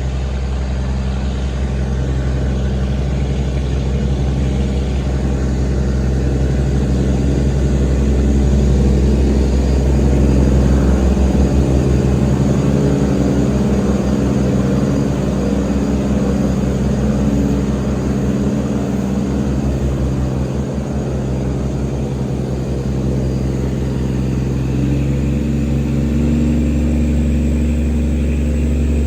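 Engine of a wooden towing motorboat (tugboat) running steadily at a constant speed, a deep even drone.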